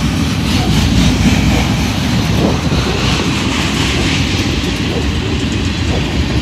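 Norfolk Southern mixed freight train's cars rolling past: a steady, loud rumble of steel wheels on the rails, with a few faint clicks.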